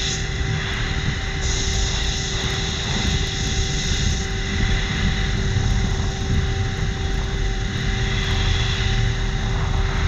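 Steady jet engine and cockpit air noise heard inside an F/A-18 two-seater's cockpit as it rolls along the runway after landing. It is an even roar with a few fixed steady whines running through it.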